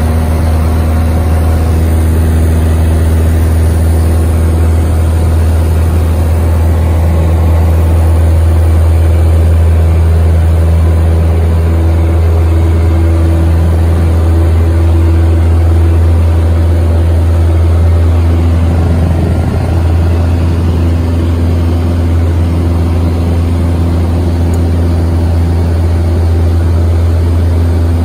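Piper Cherokee 140's four-cylinder engine and propeller at takeoff power, heard inside the cabin as a loud, steady drone through the takeoff roll and climb-out.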